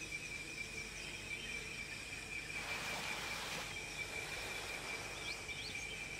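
Faint outdoor ambience: a steady high-pitched drone over a soft hiss, with two short chirps near the end.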